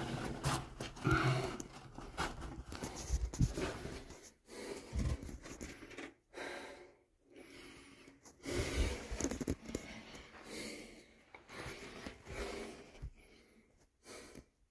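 A person breathing hard and panting, with rustling of clothes and gear, in irregular bursts broken by short pauses.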